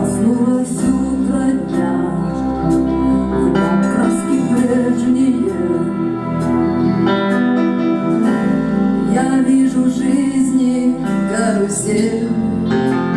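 A live band plays the instrumental opening of a pop-rock song, with guitar, keyboards, bass and drums and a steady beat.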